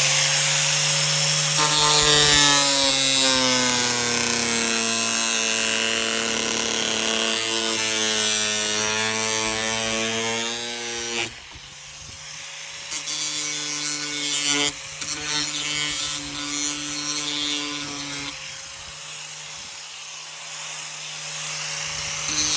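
Angle grinder cutting through the truck's lower front body panel: a loud, high spinning whine over gritty cutting hiss, the motor's pitch sagging under load. About 11 seconds in the cutting drops away and the grinder runs more quietly with brief, uneven bites, then cuts hard again near the end.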